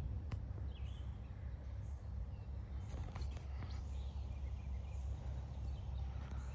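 Wind buffeting the microphone as a low, steady rumble as a storm approaches, with faint bird chirps and a few small clicks over it.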